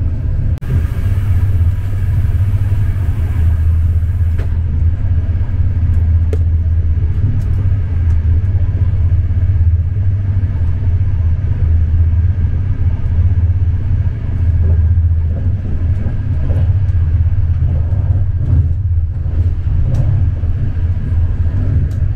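Steady low rumble of a moving passenger train, heard from inside the carriage, with a hiss over it for a few seconds near the start.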